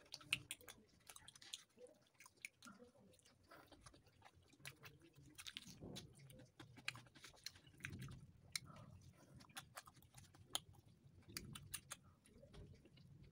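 Faint, close-up chewing and mouth sounds of a person eating paratha with potato curry and raw onion by hand: irregular wet clicks and smacks with a few soft swells.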